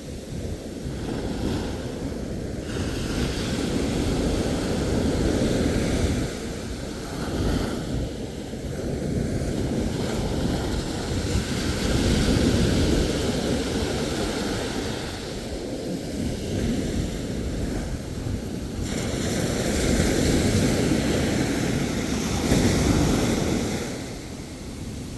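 Ocean waves breaking and washing ashore in slow surges, each swell rising and fading over several seconds, with some wind rumble on the microphone.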